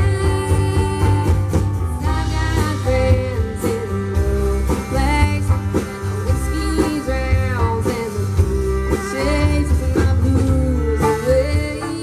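Live country band playing: a woman singing over acoustic guitar, fiddle, electric bass and electric guitar, with a steady drum beat.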